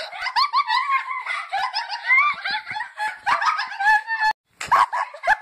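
Girls laughing hysterically in high-pitched shrieks and squeals. The sound drops out for a moment about four seconds in, then the laughter picks up again.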